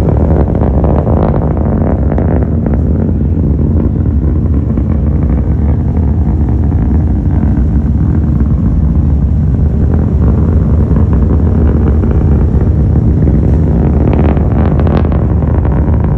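SpaceX Starship prototype's Raptor rocket engines heard from a distance during ascent: a loud, steady low rumble, turning rougher and crackly about fourteen seconds in.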